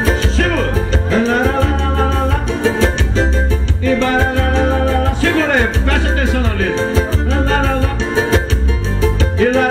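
Live music from an electronic keyboard played through loudspeakers: a steady bass beat under a sliding lead melody.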